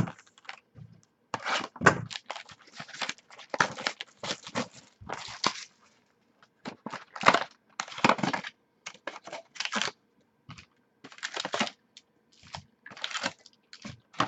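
A sealed box of trading cards being torn open and handled: a run of short, irregular ripping and crinkling sounds with brief pauses.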